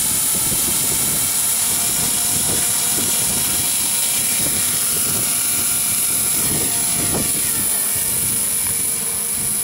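Small battery-powered radio-controlled model helicopter flying, its electric motor and rotor giving a steady high whine. Wind buffets the microphone with an irregular low rumble.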